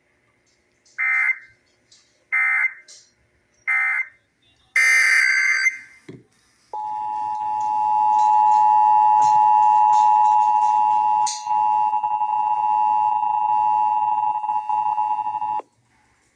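Emergency Alert System test tones: three short digital data bursts about a second and a half apart, the end-of-message code, then a longer data burst. About seven seconds in, the steady two-tone EAS attention signal starts and holds for about nine seconds, cutting off suddenly.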